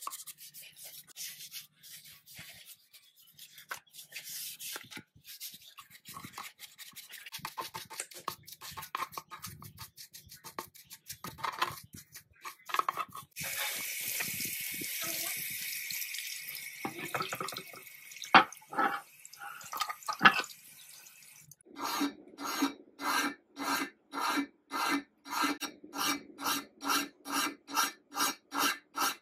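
A stiff brush scrubbing a rusty cast-iron sewing machine arm. Water then runs over the part for a few seconds as it is rinsed, followed by a couple of sharp knocks. Near the end a hand file rasps across the metal in even strokes, about two a second.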